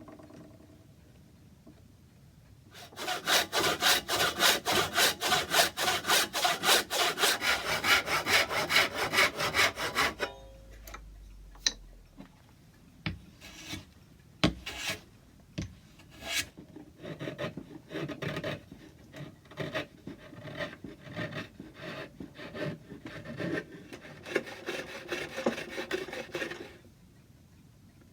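Hand saw cutting through a small piece of mahogany in quick, even strokes for about seven seconds. After a pause come a few sharp knocks, then slower, uneven scraping strokes as the patch is trimmed to size.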